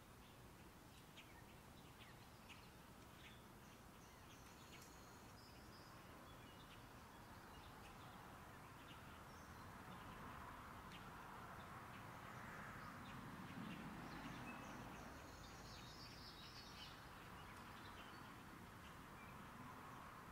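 Faint, scattered chirps and short calls of small birds over a quiet outdoor background hiss, with a few brief higher whistled notes a few seconds in and again past the middle.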